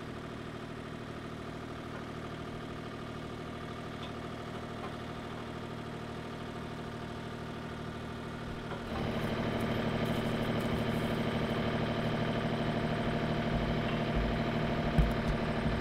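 Bobcat E32 mini excavator's diesel engine running steadily at idle, the sound stepping up suddenly and getting louder about nine seconds in. A few low thumps near the end.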